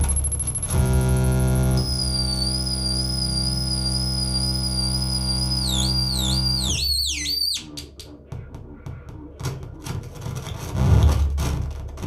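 Live electronic noise music from a table of electronics and effects units: a steady buzzing drone with a wavering high whistle on top. Around six to seven seconds in, the whistle swoops downward several times and the drone cuts off, leaving scattered clicks, crackles and scraping noise that swells again near the end.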